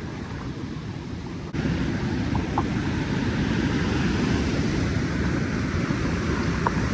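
Steady low rumble of water rushing below a lock and dam, mixed with wind on the microphone; it jumps abruptly louder about a second and a half in.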